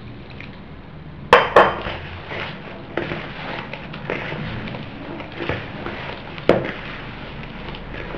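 Hands mixing and squeezing crumbly bread dough in a bowl as warm water is worked in, a soft scratchy rustle with small ticks. Two sharp clinks come close together about a second and a half in, and another later on.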